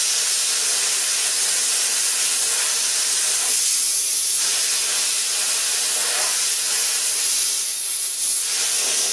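Plasma cutter torch running at 40 amps on 100 PSI air, cutting slowly through thick steel plate with a loud, steady, unbroken sound. The cut is struggling to get through because the small compressor can't keep up the air supply.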